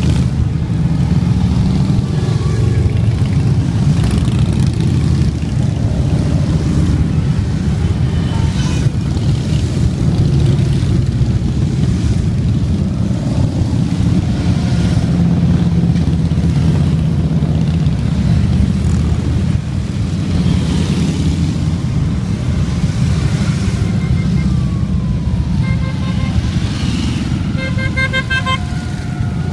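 A steady stream of motorcycles, mostly Harley-Davidson V-twin touring bikes, rumbling past at parade speed. Near the end a horn toots in a run of short beeps and a siren glides in pitch.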